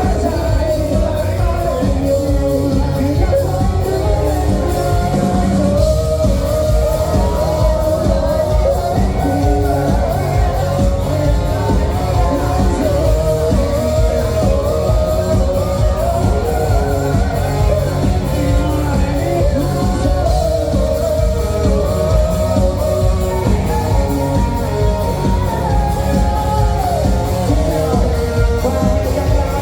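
A Vietnamese song with a singing voice over a full band backing with a steady, heavy low beat.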